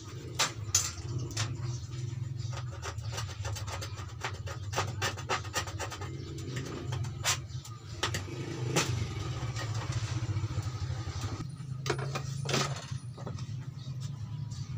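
Hand tools and wire being handled over a metal TV backlight panel: scattered small clicks, taps and scrapes, a few sharper ones near the end, over a steady low hum.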